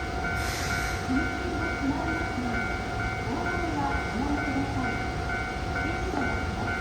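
A Japanese level crossing's electronic warning bell ringing in a rapid, even repeat over a steady tone, with train noise behind it. A brief hiss comes about half a second in.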